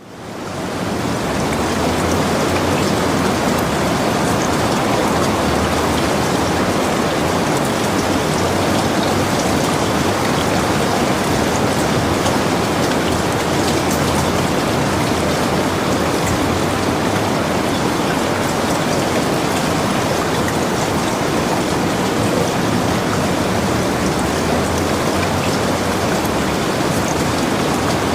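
Steady rain falling and pattering on surfaces. It fades in over the first second, then holds even throughout.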